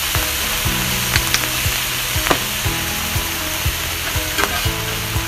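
Beef short ribs, onions and fried rice sizzling on a hot Blackstone flat-top griddle, with soy sauce just poured over the rice. The sizzle is steady, with scattered sharp pops.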